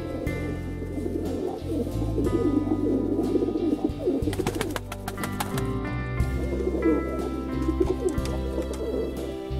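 Domestic pigeons cooing over instrumental background music, with a quick run of clicks or taps near the middle.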